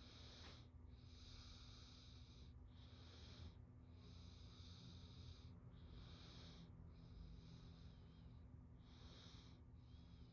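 Diving sound effect: a diver breathing slowly in and out, each breath a faint rush of air lasting about a second, with short pauses between. A steady low hum runs underneath.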